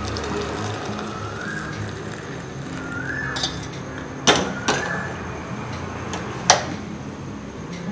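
Stainless-steel kitchen vessels knocking together: three sharp metallic clinks, two about four seconds in and one near the end, over background music with a short rising phrase that repeats about every second and a half.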